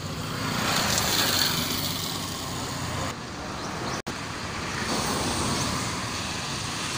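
Street traffic: motor vehicles running and passing, with one swelling past close about a second in. The sound drops out for an instant about four seconds in.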